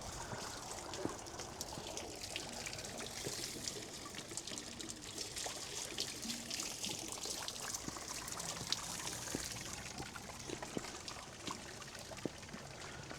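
Ornamental garden fountain, a cherub riding a swan, with water splashing and trickling steadily into its basin.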